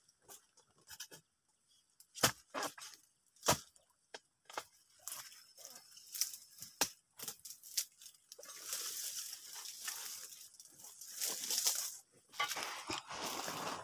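Dry oil palm fronds and leaf litter being handled, with scattered sharp clicks and knocks at first. From about eight seconds in, a longer spell of dry rustling and crackling takes over.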